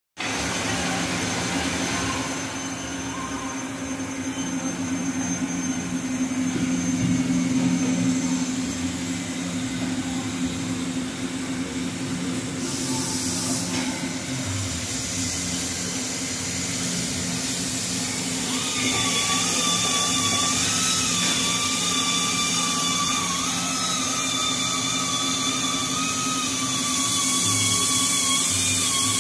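Makino A77 horizontal machining center running: a steady low machine hum with a hiss. About two-thirds of the way in, a high whine joins it and shifts up and down a little in pitch.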